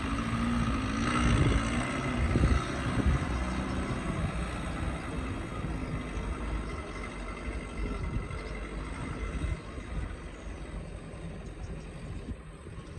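Excavator's diesel engine running under load while it digs, its pitch rising and falling with the work. A few knocks come in the first few seconds.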